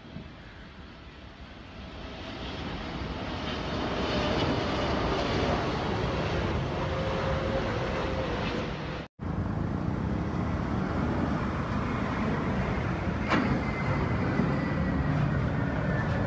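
Emirates Boeing 777 on final approach, its jet engines growing steadily louder over the first few seconds as it passes low overhead, a faint whine riding on the rumble. About nine seconds in, the sound cuts out for an instant and more steady jet-and-traffic noise follows.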